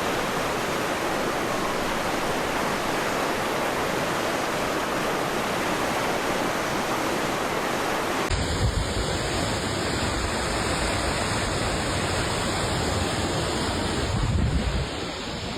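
Rushing floodwater, a steady dense noise. About eight seconds in it changes to a second stretch of the same rush with low rumbling underneath.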